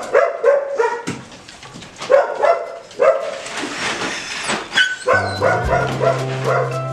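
Dogs barking and yipping in short repeated calls; background music comes in about five seconds in.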